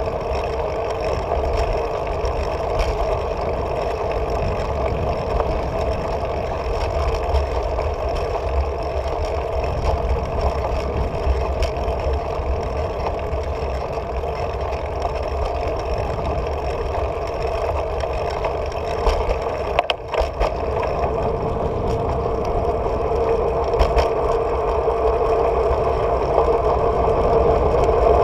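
Steady wind rush and tyre rumble from a bicycle rolling along an asphalt street, picked up by a handlebar-mounted camera, with a short dip about two-thirds of the way through.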